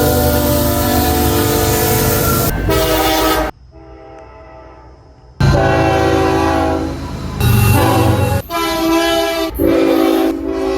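Locomotive air horns sounding loud, steady multi-note chords, in a run of short clips joined by abrupt cuts, one of them much quieter. A low rumble from the train lies beneath some of them.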